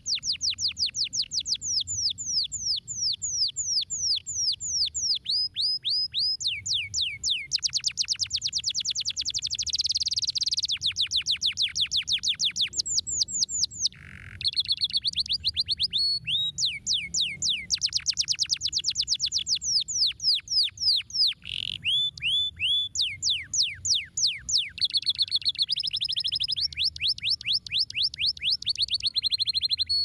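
Domestic canary singing a long, continuous song of rapid trills, each trill a fast run of repeated downward-sweeping notes. The bird switches from one trill type to the next every few seconds, with one short break about halfway through.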